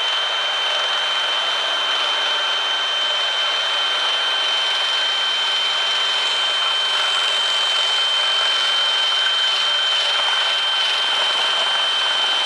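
Cordless drill boring a hole through the steel of an old truck frame, its motor running at a steady speed with one steady high-pitched whine over the grinding of the bit in the steel.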